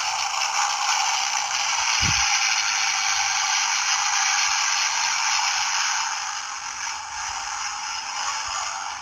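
Hornit Mini electric bike horn playing its aeroplane sound effect: a steady rushing noise that builds over the first second or two and eases a little near the end. A brief low thump about two seconds in.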